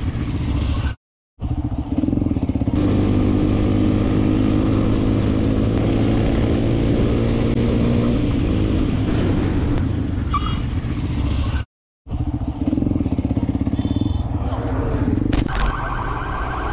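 Motorcycle engine running under way, a steady engine note over a dense rush of road and wind noise, dropping out to silence twice, briefly.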